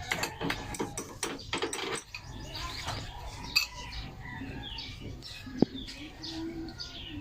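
Small birds chirping. There is a run of clicks and knocks in the first two seconds, and one sharp click about five and a half seconds in.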